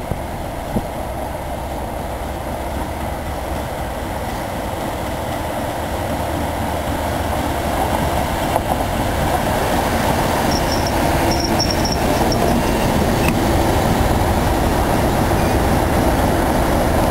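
British Rail Class 37 diesel locomotive, with its English Electric V12 engine, running in along a platform with a train of Mk1 carriages and passing close by. Engine and wheel noise grow steadily louder over the first half as it nears, then hold.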